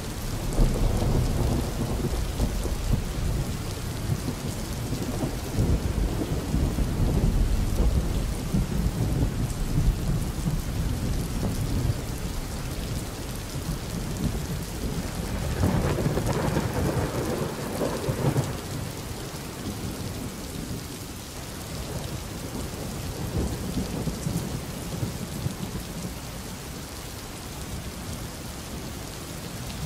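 Steady rain with low rolling thunder, the rumble swelling about halfway through.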